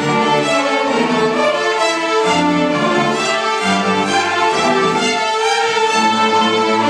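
String orchestra playing, violins and cellos bowing together in sustained notes, with the low notes moving every half second or so.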